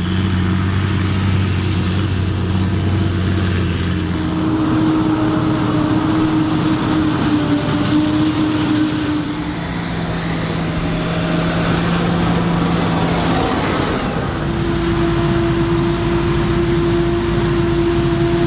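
Large farm tractors' diesel engines running steadily while hauling silage trailers. The sound comes from several successive shots, and the engine note changes at each cut, about 4, 9 and 14 seconds in.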